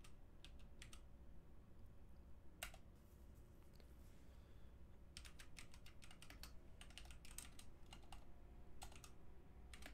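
Faint typing on a computer keyboard: a few scattered keystrokes, then a quicker run of keys in the second half as a terminal command is entered.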